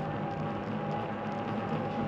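Steady rolling noise of a bicycle being ridden, with a steady thin whine over it.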